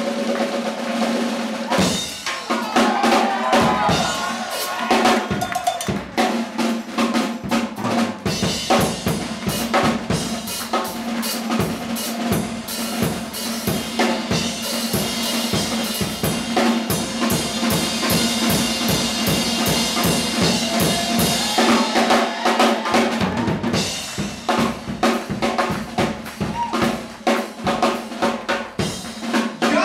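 Drum kit solo: fast snare strokes, rolls and rimshots. About a quarter of the way in, bass drum kicks and cymbal crashes join, and they thin out again past the two-thirds mark.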